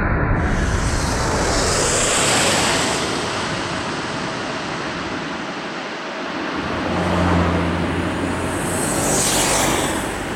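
Jet engine noise of an Emirates Airbus A380, a steady rush that rises and falls as the aircraft passes, swelling twice.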